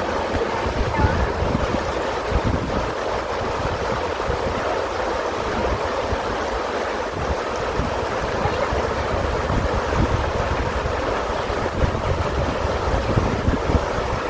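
Steady rush of running water, with wind buffeting the microphone in uneven low gusts.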